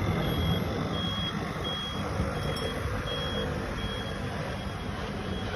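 A small truck's external warning beeper sounding a steady series of high single-tone beeps, about three every two seconds, which stops about four seconds in. The beeper is a blind-spot alert set off by a motorcycle beside the stopped truck. A low engine and traffic rumble lies under it.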